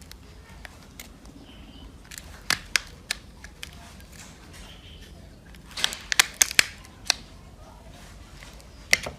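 Sharp clicks and snaps of small hard parts and tools being handled during a phone repair, coming singly and in short clusters, busiest in the middle.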